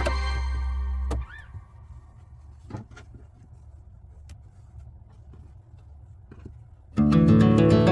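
Background music cuts off about a second in, leaving quiet room tone with a few faint clicks and taps. Acoustic guitar music starts suddenly near the end.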